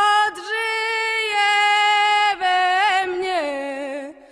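A woman singing a Polish folk ballad unaccompanied. She draws out one long note, adds a wavering ornament about three seconds in, then steps down in pitch and fades out near the end.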